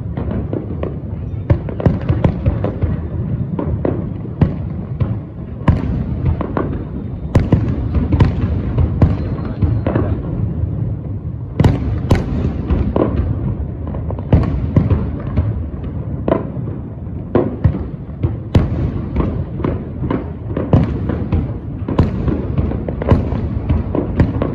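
Aerial fireworks bursting overhead: a steady low rumble of booms, broken by frequent, irregular sharp bangs and crackles.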